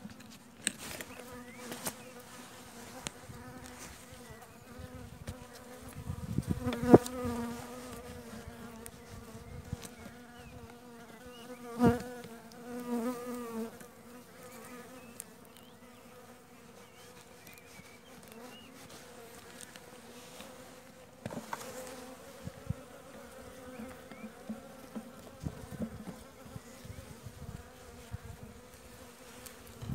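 Honeybees buzzing around an open hive: a steady hum, with single bees passing close by so the buzz swells and wavers about 7 and 12 seconds in. Scattered light clicks run through it, the sharpest about 7 seconds in.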